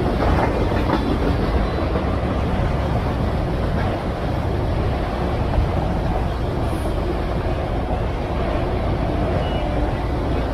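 Freight train of enclosed autorack cars rolling past, a steady noise of steel wheels running on the rails.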